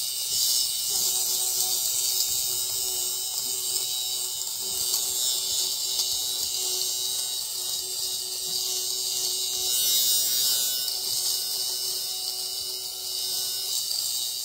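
Ardesto LSH-Y1 electric fabric shaver running continuously as it is passed over a knit sweater, its spinning blades cutting off pills: a steady motor hum with a bright hiss over it.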